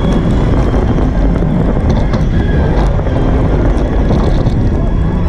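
Roller coaster train running along its steel track, a continuous rumble, with wind buffeting the ride-mounted camera's microphone.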